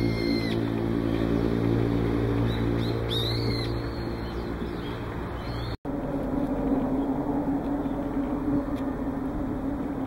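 Brown-eared bulbul giving two short arching screech calls, one near the start and another about three seconds in, over a steady low engine hum. A little past halfway the sound cuts out for an instant, and a steady hum with a different pitch pattern carries on.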